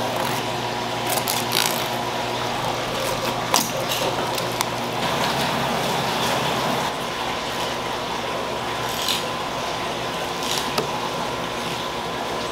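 Steady hiss of a running tap, with light knife clicks and scrapes as flatfish are scaled and filleted on the cutting boards.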